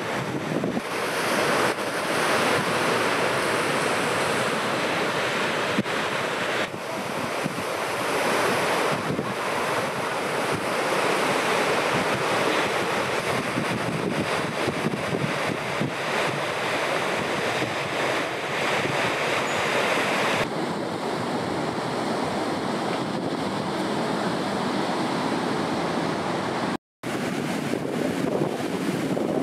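Ocean surf: heavy waves breaking and churning whitewater, a steady rushing wash with wind buffeting the microphone. The sound changes abruptly at several edits and cuts out for an instant near the end.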